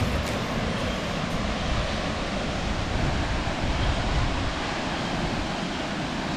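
Steady, even rush of water falling from a 30 m straight-drop waterfall.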